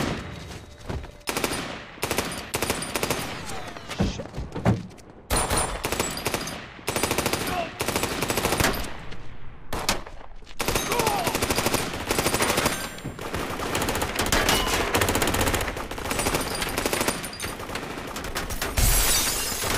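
A gunfight: a loud gunshot at the very start, then many shots in quick succession, some in fast strings, with the heaviest volley near the end.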